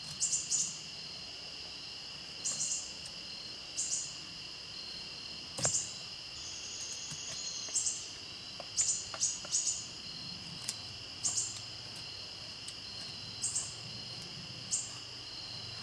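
A Scandi-ground knife blade shaving curls off a stick to make a feather stick: short scraping strokes, about a dozen, some in quick runs, with one sharper knock about six seconds in. A steady high drone of crickets runs underneath.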